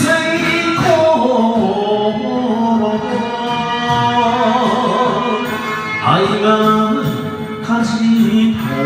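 A man singing an enka song into a karaoke microphone over the song's backing track, holding long notes, with a new line starting about six seconds in.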